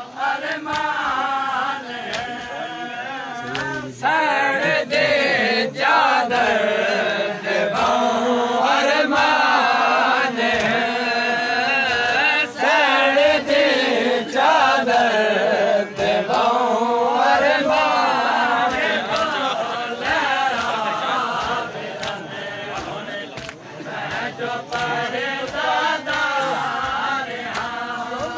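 Crowd of men chanting a Muharram mourning lament (nauha) together, with frequent sharp slaps of chest-beating (matam) cutting through the singing.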